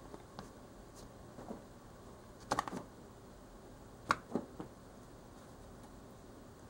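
Two brief clusters of light clicks and taps, the first about two and a half seconds in and a sharper one about four seconds in, over quiet room tone.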